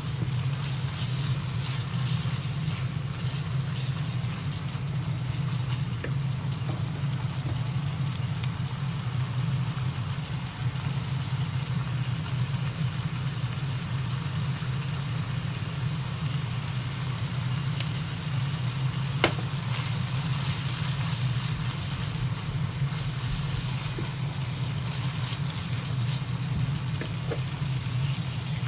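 Beef-and-pork ground meat sizzling as it is stir-fried in a pan, over a steady low hum; a sharp click about two-thirds of the way in.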